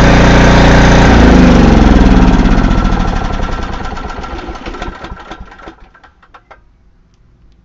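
Briggs & Stratton 5,550-watt portable generator engine running steadily, then switched off about a second in. It winds down with falling pitch and slowing firing strokes, fading out and stopping about six and a half seconds in. This ends a test run in which the engine ran well on fuel fed through a newly fitted inline fuel filter.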